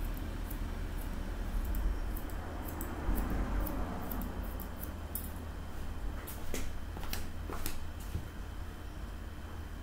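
Hairdressing scissors snipping through a fringe of hair: a series of short, crisp snips, the clearest few in the second half. A steady low hum runs underneath.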